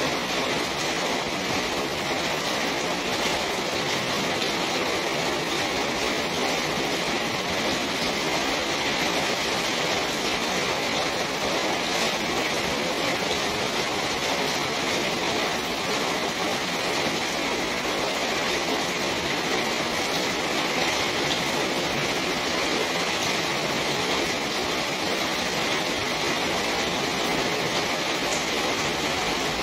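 Steady rain falling on a small garden, an even hiss that keeps on without let-up.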